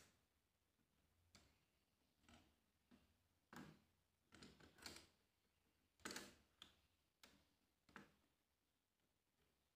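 Faint, irregular light clicks and taps, about a dozen, from small repair tools handling phone parts on a workbench.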